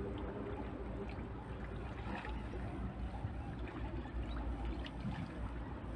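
Steady low rumble and hiss with faint sloshing of water as a person wades through a shallow canal.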